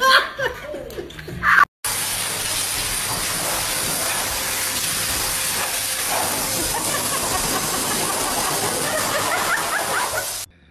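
High-velocity pet grooming dryer blowing a steady rush of air through its hose onto a dog's coat. It starts about two seconds in and cuts off suddenly near the end.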